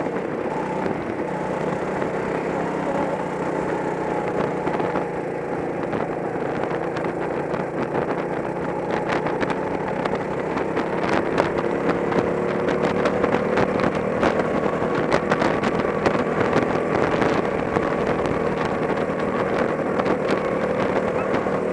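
Go-kart engine running at racing speed, heard close up from on board the kart, its pitch drifting gently up and down with speed.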